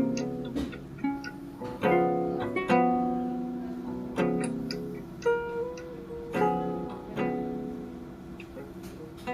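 Background music: acoustic guitar chords plucked and strummed, each one struck and left to ring out.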